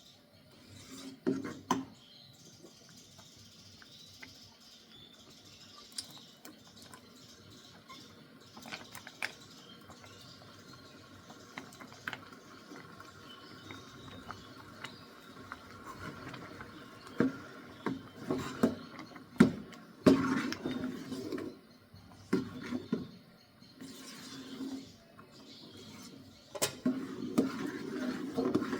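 Kitchen utensils knocking, clinking and scraping against pots and dishes in irregular strokes, busier and louder in the second half.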